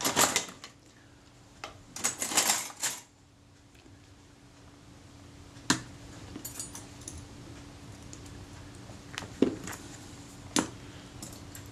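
Small metal hand tools and a metal camera body handled on a rubber work mat: a busy patch of clicks and clatter in the first three seconds, then single sharp clicks about six, nine and a half and ten and a half seconds in.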